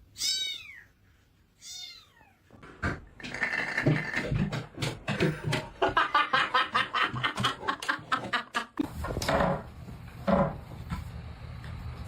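A cat meowing twice, each call falling in pitch, in the first two seconds, followed by several seconds of rapid clicking and tapping.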